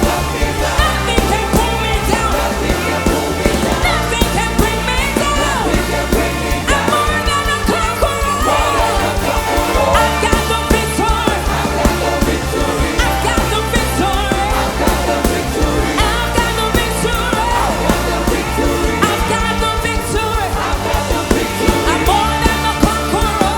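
Loud music with singing over a steady beat and bass.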